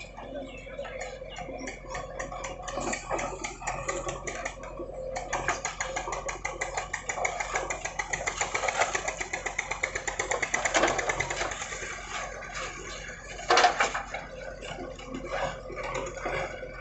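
A working machine's engine running with a fast, even clatter that builds up about five seconds in and eases off after about twelve seconds. A sharp knock near the end is the loudest moment.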